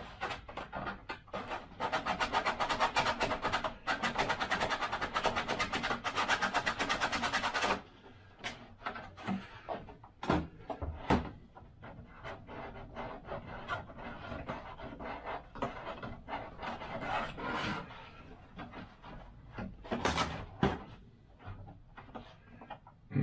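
Rapid, steady scraping on a 3D-printed plastic part for about six seconds, starting a couple of seconds in, followed by scattered clicks and taps as the part is handled.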